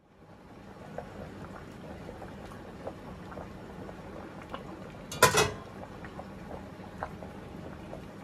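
Pot of bamboo shoots boiling in rice-bran water to draw out their bitterness: a steady bubbling with scattered small pops. A short, loud clatter of metal kitchenware comes about five seconds in.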